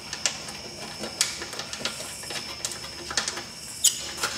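Irregular light metal clicks and scrapes as the stainless bolts holding an LED boat light are screwed down into rivet nuts, with a faint steady high-pitched tone underneath.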